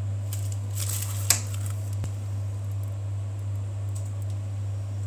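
A steady low electrical-sounding hum, with a short rustle and one sharp click about a second in as the cream flower is handled and set down on the tray.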